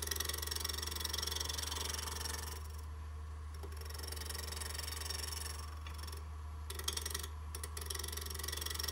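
Wood lathe spinning an off-center multi-axis spindle while a gouge makes interrupted cuts, the tool meeting alternately air and wood each turn. The cutting noise over the steady low hum of the lathe stops briefly a few times as the gouge is lifted and put back to refine the coves and bead.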